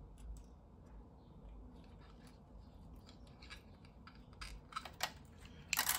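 Light plastic clicks and scrapes as a small GoDriVe display bracket is handled and fitted onto an Amiga 600's plastic case, with a few sharper clicks in the second half and a louder cluster of clicks just before the end.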